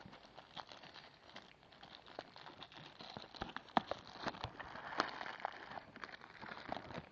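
Packaging being handled as speakers are unpacked from their box: crinkling and rustling with many small sharp clicks, busiest in the middle.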